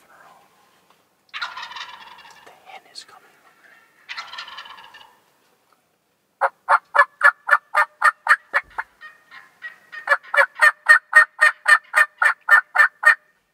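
Wild turkey gobbling twice, each gobble a rattling burst of about a second. This is followed by two long bouts of loud, sharp turkey calls, about five a second, with a short gap between the bouts.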